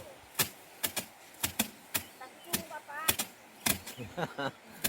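A run of sharp, irregular knocks or clicks, about two a second.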